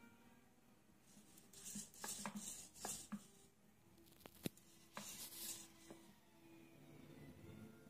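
EMO desktop robot shuffling its feet on its home charging station: faint scratching and scattered small clicks, a few close together about two to three seconds in and another cluster around four and a half to five and a half seconds.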